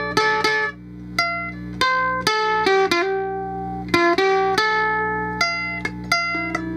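Electro-acoustic ukulele played through a small amp with light distortion: a slow line of single picked notes, each ringing on, with a steady low amp hum underneath.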